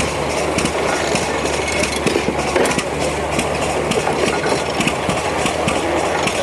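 1890s hay baler running: continuous mechanical clatter with rapid, irregular rattling over a steady low drone from its driving engine.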